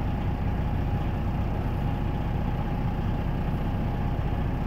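Semi truck's diesel engine running steadily at low revs, heard from inside the cab as the truck rolls slowly. A faint steady whine sits over the low rumble.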